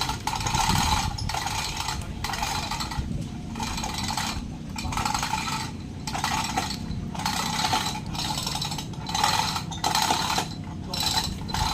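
A hand tool scraping across wood in repeated rasping strokes, about one a second with short pauses between them, over a steady low rumble.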